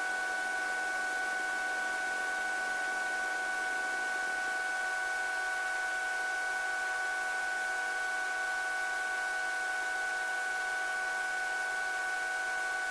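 Helicopter running at ground idle during its cool-down, heard through the intercom feed as a steady hiss with a steady whine of several tones. A faint low tone slides down about four seconds in.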